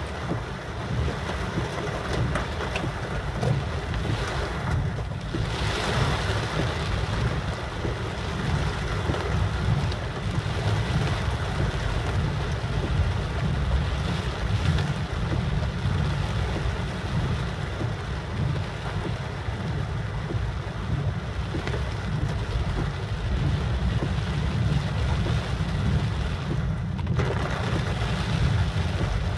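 Car driving in the rain: a steady low road rumble under the hiss of rain and wet tyres. The hiss swells briefly about five seconds in.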